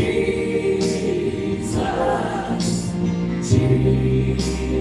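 A choir singing a slow worship chorus to instrumental accompaniment, the word "Jesus" sung in long held notes, over a steady beat with cymbal strikes about once a second.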